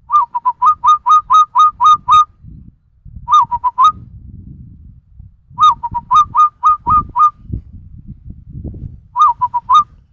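A person whistling an imitation of a zebra dove's (perkutut's) cooing call. Four phrases of quick, repeated looping notes: the first and third are long, the second and fourth short.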